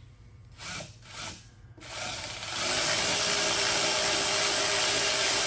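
Handheld power tool, likely driving fasteners while the motorcycle's bodywork is put back together. It gives two short bursts, then runs steadily for several seconds.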